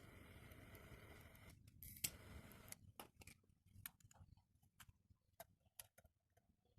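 Faint steady hiss that cuts off about three seconds in, then scattered small sharp clicks and taps, as of metal parts being handled on a workbench.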